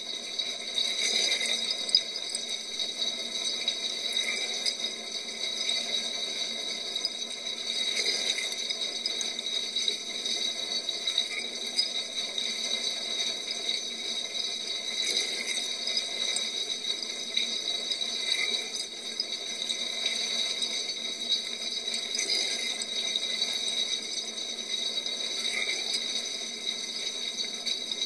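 Dishwasher wash cycle heard from inside the tub: water spraying and splashing against the dishes and walls with a light rattle, swelling in a splash about every three and a half seconds as the rotating spray arm sweeps past.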